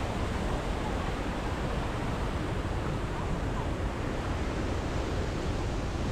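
A waterfall rushing: a steady, unbroken wash of falling-water noise.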